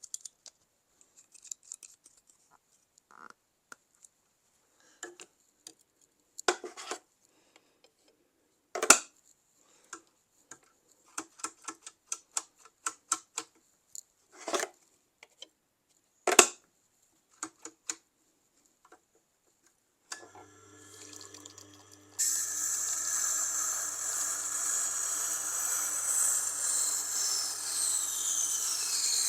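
Irregular clicks and knocks of handling for the first twenty seconds. Then a Tormek wet sharpening machine's motor starts humming, and a couple of seconds later a steel knife blade is pressed to the wet grinding stone with a loud, steady scraping hiss.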